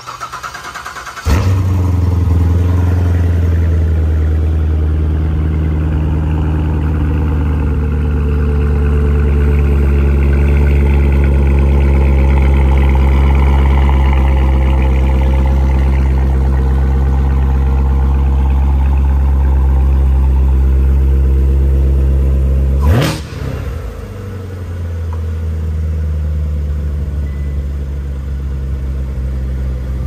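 2015 Corvette Z06's supercharged 6.2-litre LT4 V8 cold-starting: the starter cranks for about a second, then the engine catches and runs at a loud, steady fast idle. After some twenty seconds there is a brief sharp burst, and the idle then settles lower and quieter.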